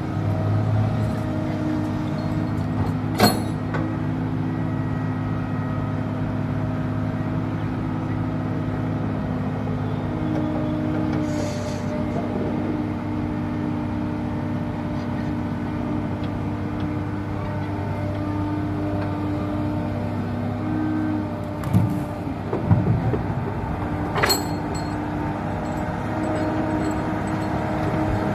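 Komatsu PC200-6 excavator's diesel engine running steadily, its note rising and easing with hydraulic load as it digs sand and swings. Two sharp metallic clanks, about 3 seconds in and again near the end, and a few heavy thuds shortly before the second clank.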